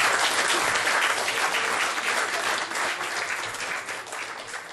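Audience applause, a dense patter of many hands clapping, gradually dying away over the second half.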